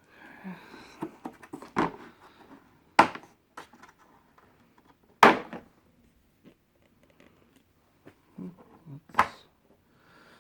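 Blow-molded plastic socket-set case being handled and opened: sharp plastic clicks and knocks, four of them loud, with small clinks of loose impact sockets shifting inside.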